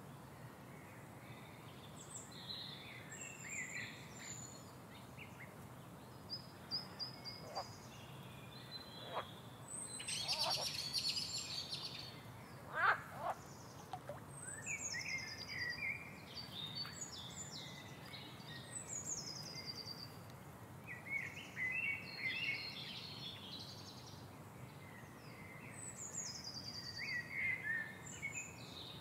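Songbirds singing, with repeated falling trilled phrases and short chirps, over a steady low background hum. A few brief knocks or rustles sound through it, the loudest about halfway through.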